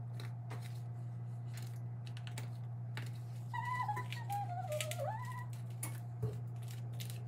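Rubber spatula spreading thick brownie batter in a metal baking pan: soft scrapes and light taps over a steady low hum, with a sharper knock about six seconds in. About three and a half seconds in, a wavering whistle-like tone dips and rises for about two seconds.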